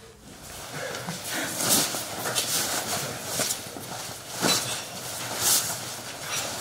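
Irregular rustling and soft knocks of blankets and bedding being handled, with footsteps on a hard floor; a few louder sharp sounds stand out, about two, four and a half and five and a half seconds in.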